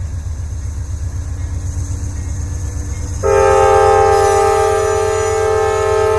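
GE Dash 9 (C44-9W) diesel locomotives working hard, their 16-cylinder engines running under load as they start a long freight train. About three seconds in the locomotive horn starts, a loud chord of several held notes that is still going at the end.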